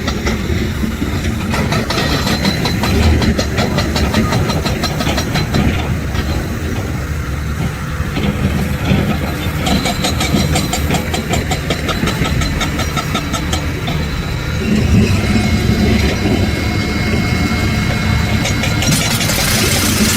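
Heavy diesel construction machinery running continuously, its engine sound stepping up in level about three-quarters of the way through.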